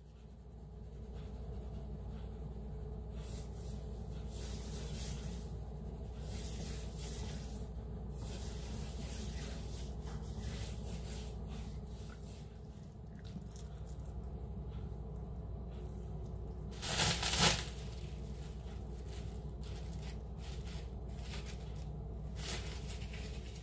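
Hands rubbing a dry spice rub into a raw rack of pork ribs: soft, scratchy rubbing and sprinkling over a steady low hum, with a brief louder rustle about 17 seconds in.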